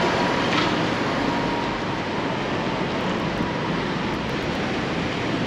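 Steady rushing noise of moving air, with a Toyota Land Cruiser SUV driving slowly through a concrete parking garage.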